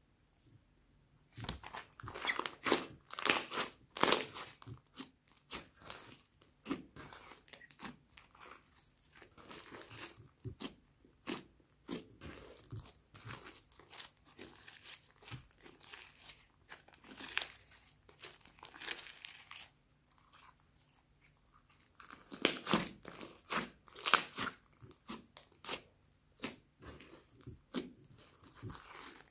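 Hands squishing, folding and pressing a large lump of thick slime mixed with foam beads, making irregular squishes, pops and crackles. The sound starts about a second and a half in, with louder stretches a few seconds in and again past twenty seconds.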